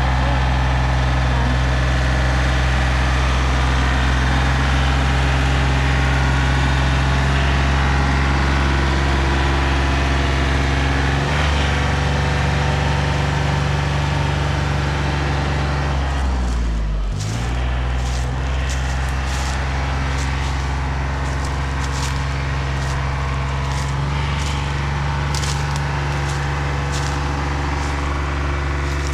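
A heavy engine running steadily at speed; a little past halfway its pitch drops sharply and climbs back. From then on scattered sharp cracks and clicks sound over the running engine.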